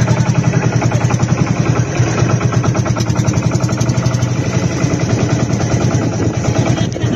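Boat engine running steadily, a rapid even pulse over a deep hum.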